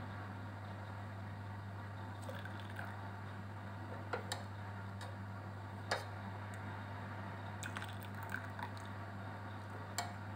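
Turmeric and ginger liquid being ladled and poured into a glass jar, with several sharp clinks of the metal ladle, over a steady low hum.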